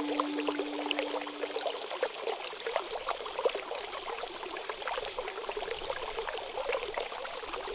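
Trickling, flowing water with many small splashes. In the first two seconds the last of a struck bell's steady ring fades out.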